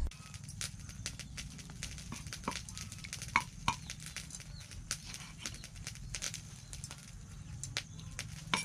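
Meat cleaver slicing raw beef on a thick wooden chopping board: irregular knocks and taps as the blade strikes the wood, with a few sharper knocks about three and a half seconds in and again at the end.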